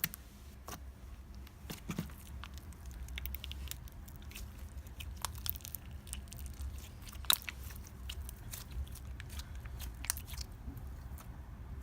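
Hands squeezing and poking store-bought glittery slime, giving irregular small clicks and pops over a low steady hum.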